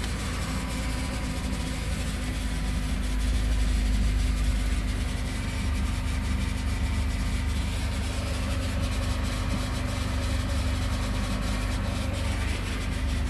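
Mercedes SLK230's supercharged 2.3-litre four-cylinder idling just after start-up, with a thin, steady, high-pitched screech over the engine. The owner reports the screech on every start, alongside a transmission fault.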